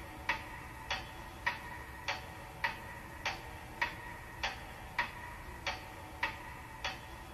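Clock ticking steadily, a little under two ticks a second, each tick a short click with a ringing pitch, as a ticking effect at the start of a song recording.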